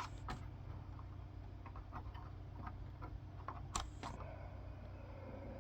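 A few sharp clicks and knocks from plugging in and handling the Macintosh, two pairs of louder clicks at the start and about four seconds in, over a low steady hum.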